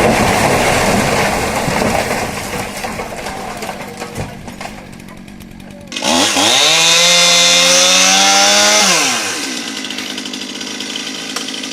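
A loud rushing noise in the first half fades out. About six seconds in, a two-stroke chainsaw is throttled up suddenly, held at high revs for about three seconds, then let back down to a lower steady running.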